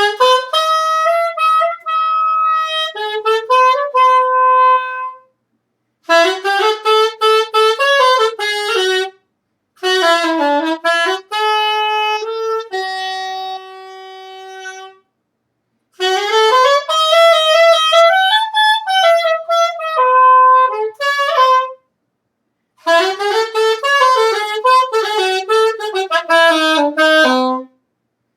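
Solo saxophone playing melodic phrases, five phrases of a few seconds each with short breaks between them; the third ends on a long held note.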